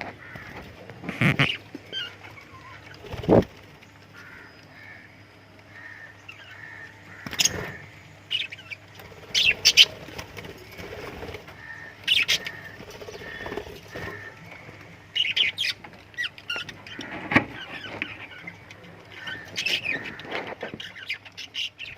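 Lovebirds chirping and squawking in short, sharp calls every few seconds, with a run of softer chirps between them. A steady low hum sits underneath.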